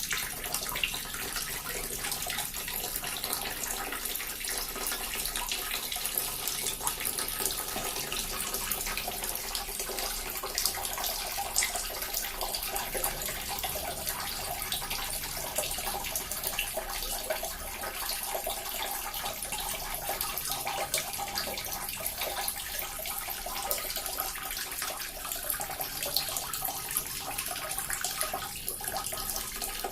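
Small water fountain splashing, a steady trickling, bubbling patter of falling water without pause.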